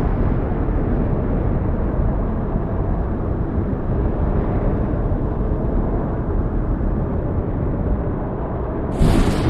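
Strong storm wind buffeting the microphone: a steady, heavy, low rumble. About nine seconds in, a louder, brighter burst of noise cuts in.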